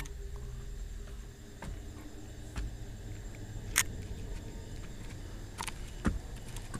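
Handling noise from a handheld camera carried close along a wall: a low rumble with a few sharp clicks and taps, the loudest right at the start and others about four and six seconds in.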